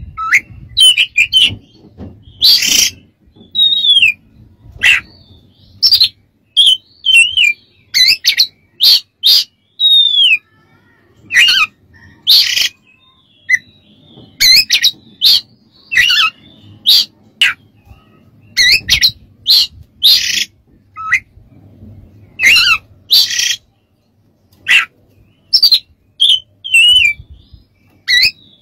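Oriental magpie-robin singing: short bursts of clear whistled notes that slide up and down, mixed with harsh scratchy notes, separated by brief pauses.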